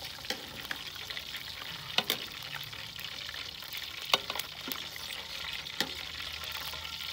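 Pakoras deep-frying in hot oil in a stainless steel pot: a steady sizzle, with metal utensils scraping and knocking against the pot a few times, the sharpest knocks about two and four seconds in.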